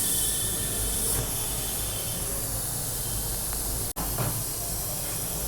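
Steady hissing noise with no clear pitch, brightest for about the first second, then a little softer; it cuts out for an instant near four seconds in.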